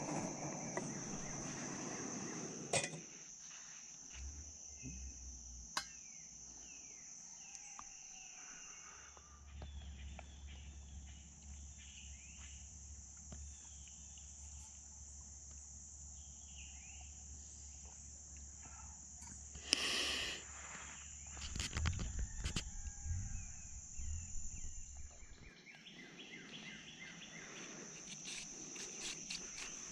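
Insects buzzing in a steady high chorus throughout, with scattered sharp clicks and a cluster of knocks about twenty seconds in. For the first few seconds a lit gas canister camp stove hisses under it.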